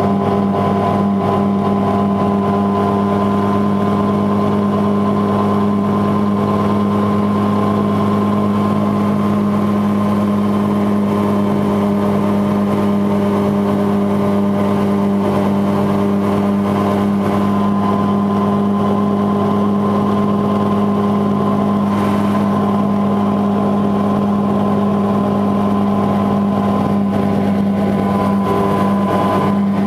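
Mosquito XE helicopter in steady flight: its two-stroke engine and rotor running together as one constant drone that holds its pitch.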